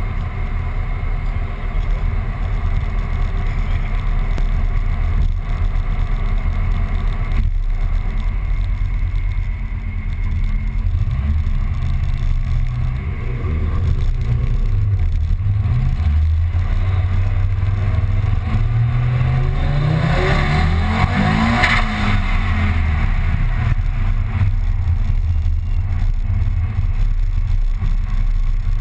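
Car engine and road noise heard inside a car's cabin, a steady low drone. After about fourteen seconds the engine note climbs steadily for several seconds as the car accelerates, peaking in a louder burst of noise around twenty seconds in, then settles back to a steady drone.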